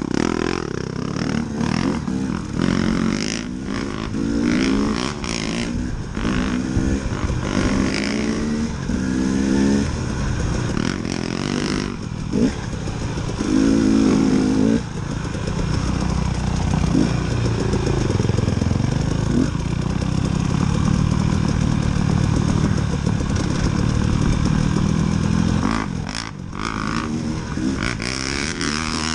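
KTM 300 two-stroke dirt bike engine running under way, revving up and easing off again and again through the throttle and gears. Occasional knocks and rattles come from riding over bumps.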